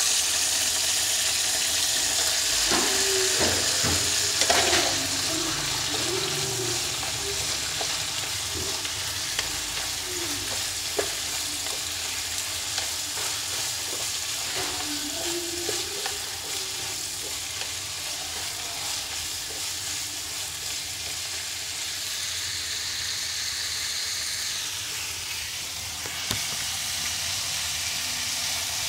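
Bamboo shoots sizzling steadily in hot oil in a pan as they are stir-fried with wooden chopsticks, with a few sharp clicks of the chopsticks against the pan.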